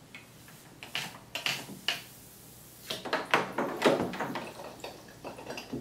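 Knocks and clatter of brewing gear being handled: an oxygenation wand and its tubing drawn out of a glass carboy and set aside. A few single knocks, then a busier run of clatter from about three seconds in.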